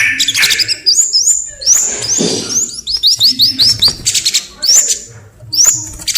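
A songbird singing a fast, loud series of short, high, upward-sweeping notes mixed with rapid dry clicking trills.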